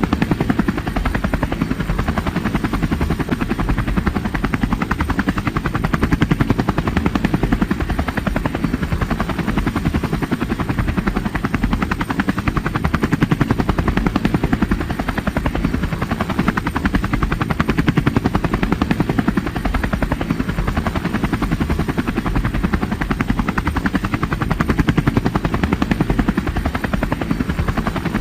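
Helicopter rotor blades chopping in a rapid, steady beat, like a hovering or cruising helicopter.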